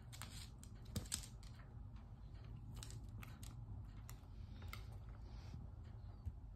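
Brussels griffon in a plastic cone collar shuffling at its metal food bowl: scattered light clicks and scrapes, loudest about a second in, with a faint steady room hum underneath.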